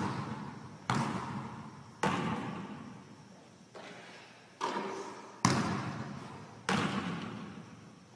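Basketball bouncing on a gym floor. There are about six sharp thuds, roughly a second apart, each fading out in the echo of a large gym.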